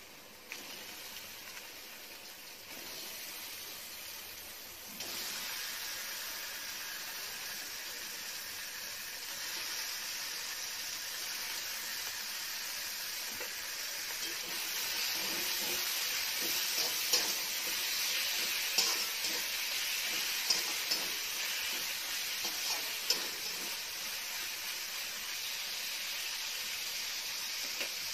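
Pieces of raw mutton liver sizzling as they fry in hot oil and masala in an aluminium kadai. The sizzle steps up about five seconds in and grows louder from about halfway. A metal spatula stirs the pieces and knocks against the pan in a run of sharp clicks.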